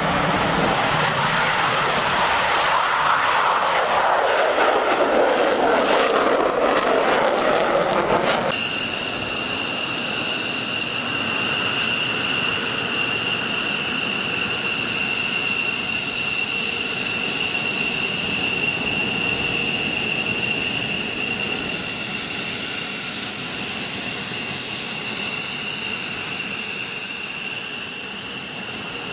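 Jet aircraft engine noise: a loud roar that sweeps in pitch as it passes, then, after an abrupt cut about eight seconds in, a steady high-pitched turbine whine with several held tones.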